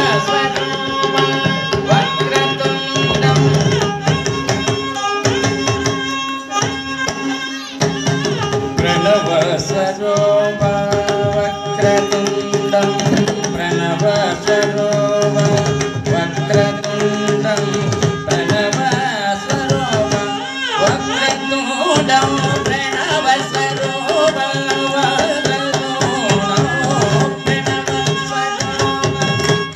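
Carnatic-style music: a mridangam drum playing quick rhythmic strokes under a violin and a man's singing voice, with the melody wavering and gliding.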